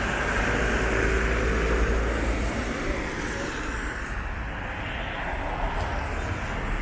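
City street traffic noise: a steady low rumble of passing vehicles, a little louder for the first few seconds and then easing off.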